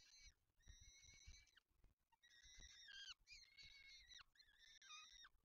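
Downy peregrine falcon chicks giving faint, high, repeated food-begging calls, each up to about a second long with short gaps, some dropping in pitch at the end, as the adult feeds them.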